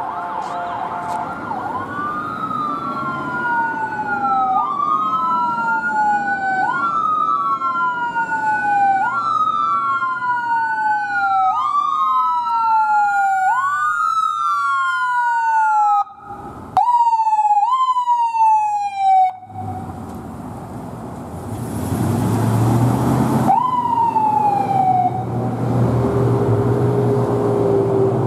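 Emergency-vehicle siren of an ambulance responding code 3, wailing in cycles that rise quickly and fall slowly, about one every two seconds. Its pace quickens for a few cycles and then it cuts off. Loud engine and road noise of passing vehicles follows, with one more short siren sweep.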